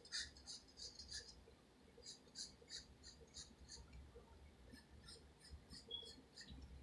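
Graphite pencil scratching on paper in short, quick sketching strokes, about three a second, faint, with a brief pause between runs of strokes.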